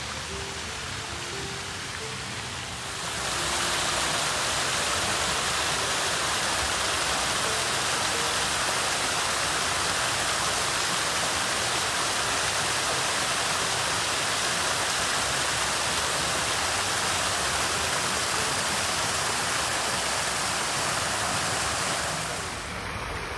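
Water splashing over a small rock-garden waterfall into a pond: a steady, even rushing that comes in about three seconds in and falls away near the end.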